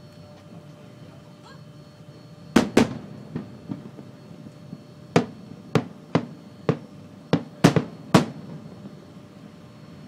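Firework shells bursting with sharp bangs: a loud pair about two and a half seconds in, then about seven more spread over the next several seconds.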